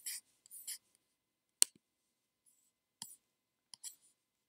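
A single sharp click about a second and a half in, among a few faint short hissing noises and small ticks. It comes as the on-screen page is turned.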